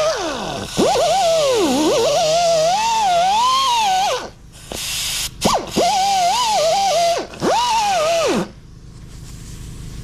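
High-speed rotary grinding tool whining as it cleans up a freshly welded stainless steel bung. The pitch dips and recovers as the tool bogs under load. It runs steadily, stops about four seconds in, then is triggered in several shorter runs and stops near the end.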